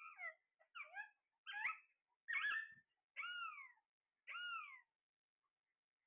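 Caged Alexandrine parakeets calling: about seven short squawking, whistled calls in quick succession, the last two longer and falling in pitch.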